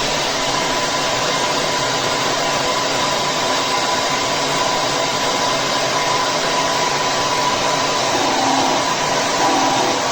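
Wavytalk 1875 W ionic hair dryer running steadily: a constant rush of blown air with a faint, even motor whine.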